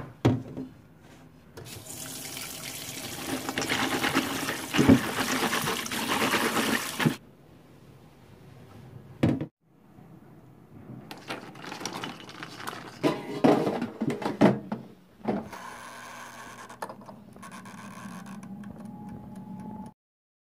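Tap water running into a stainless steel bowl of walnut pieces for about five seconds. A while later comes a run of clattering knocks and rattles as the wet walnuts are handled in a stainless steel mesh sieve to drain.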